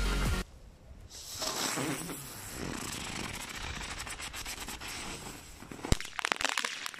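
A small 'rose' firework burning under an upturned metal basin: an uneven fizzing hiss with fine crackling, then a sharp bang about six seconds in followed by a few quicker pops.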